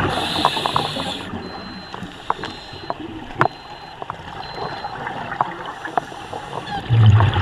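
Underwater sound from a scuba diver's camera: the hiss and gurgle of the diver's regulator and exhaled bubbles, with scattered sharp clicks. A louder low burst comes near the end.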